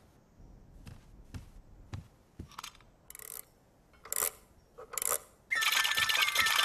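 Clockwork nightingale being set going: a series of small metallic clicks and clinks, then about five and a half seconds in its bright, tinkling mechanical song starts.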